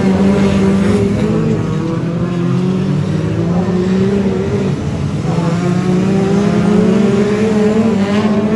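BriSCA F2 stock car engines running hard as the cars race around the oval, their notes drifting up and down as drivers accelerate and ease off.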